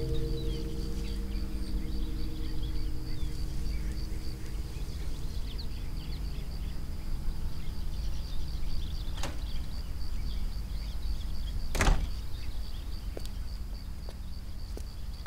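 Ringing music tones fade out over the first few seconds above a steady low rumble, with a faint high pulsing whine throughout. About twelve seconds in comes a sharp knock of the front door's latch, after a fainter click a few seconds earlier.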